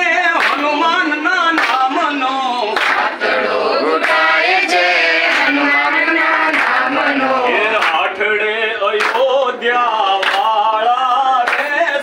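A group of men and women singing a Gujarati devotional song (bhajan) together, a man's voice leading, while they clap their hands in rhythm, roughly once a second.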